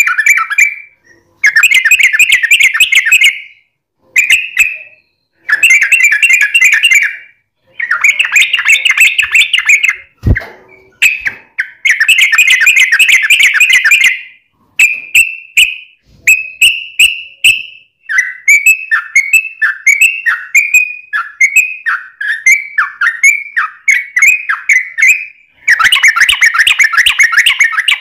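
Yellow-vented bulbul (trucuk) singing loudly in long, rapid chattering bursts of a second or two each, with short pauses between. Past the middle it switches to a string of short, separate falling notes, about two a second, before breaking into another long burst near the end. A single faint knock comes about ten seconds in.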